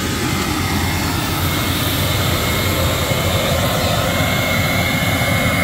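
A John Deere tractor's engine running steadily, a constant low drone with a thin high whine over it.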